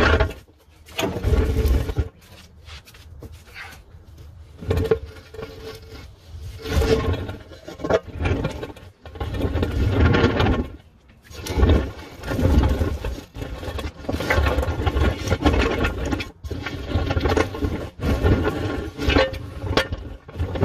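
A wheeled dolly carrying the camera rolling and scraping in irregular jerks, about one every second or two, as it is drawn along by a ratchet strap, with rattling and bumping close to the microphone.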